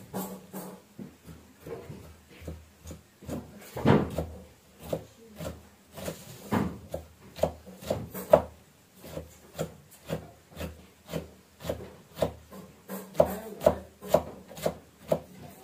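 Cleaver chopping green vegetable stalks on a thick round wooden chopping block: a steady run of sharp wooden knocks, about two chops a second.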